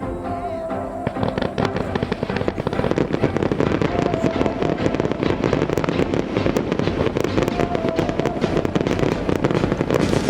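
Fireworks crackling densely, a rapid run of small pops that thickens about a second in, over a low rumble, with music underneath.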